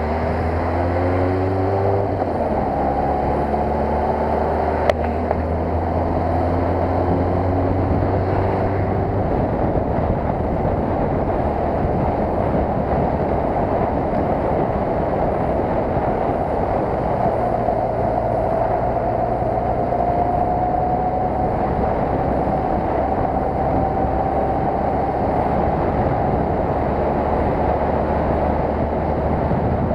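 Kawasaki ZR-7's air-cooled inline-four engine running under a rider at city speed, with wind rushing over the microphone. The engine note drops early on and steps down about two seconds in, is mostly buried by the wind in the middle, then rises slowly in pitch in the second half as the bike speeds up. One sharp click comes about five seconds in.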